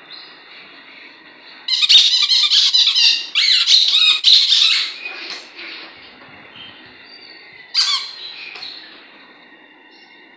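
A Yorkshire terrier puppy chewing a green spiky rubber squeaky ball, which squeaks in quick rapid runs for about three seconds, then once more a few seconds later.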